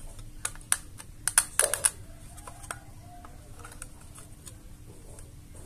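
Sharp plastic clicks and taps from a MikroTik RB750 router's snap-fit plastic case being handled and pried open by hand. A quick cluster of clicks comes in the first two seconds, followed by softer scattered ticks as the case is worked apart.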